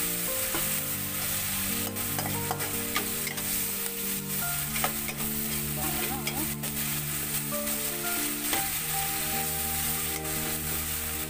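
Tomatoes and onions sizzling in a hot steel wok while a metal spatula stirs and scrapes them, with scattered sharp clicks of the spatula against the wok.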